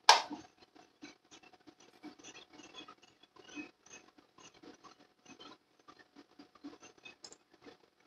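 Close handling noise as fingers work the wires and switch housing of a bench grinder: irregular scratching, rustling and small clicks, with fabric brushing close by. One sharp, loud click comes right at the start.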